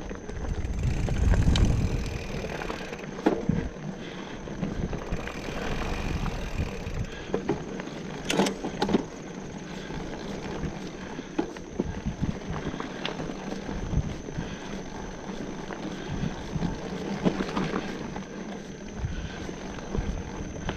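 Bicycle being ridden over rough ground: tyre noise with constant rattles and knocks from the bike, a gust of wind buffeting the microphone about a second in, and one sharp knock midway.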